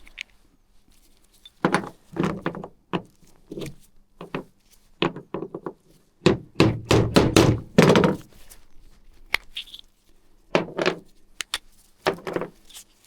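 Irregular knocks and thunks as worn rollers are knocked out of a CFMOTO CForce 1000 ATV's CVT drive pulley, with a dense flurry of them just past the middle.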